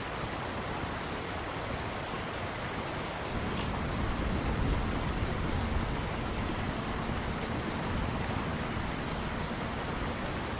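Steady outdoor noise like a constant hiss, with no distinct events; it grows a little louder and deeper from about three seconds in.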